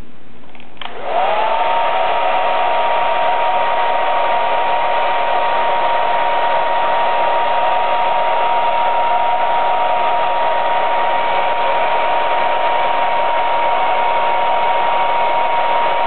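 Handheld hair dryer switched on about a second in: the motor's whine rises quickly and settles into a steady high tone over the rush of blown air, then runs evenly.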